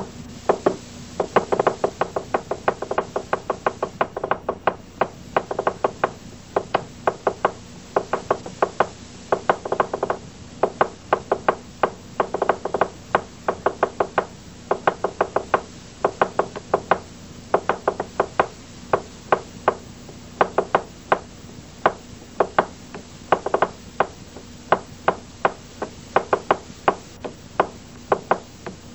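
Rapid rhythmic knocking: dense runs of quick strikes alternate with sparser beats, over a steady low hum.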